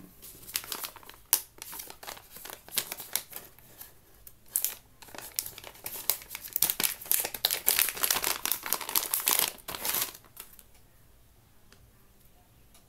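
Plastic earphone packaging crinkling as it is torn open by hand, in quick irregular crackles that stop about two seconds before the end.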